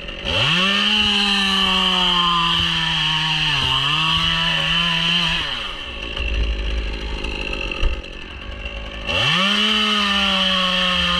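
Two-stroke chainsaw revved to full throttle, cutting through white birch for about five seconds with a brief dip in speed partway through. It drops back to a low idle, then is revved up again near the end.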